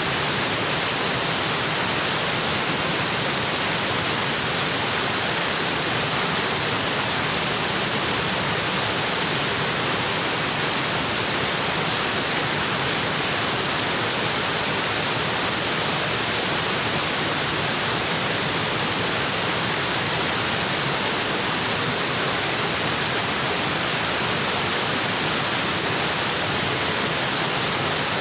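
Waterfall: water pouring onto rocks in a steady, unbroken rush.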